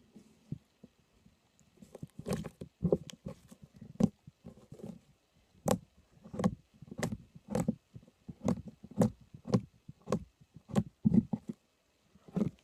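Puffy putty slime being squeezed and pressed by hand, giving a run of sharp wet pops and squelches about twice a second, starting about two seconds in.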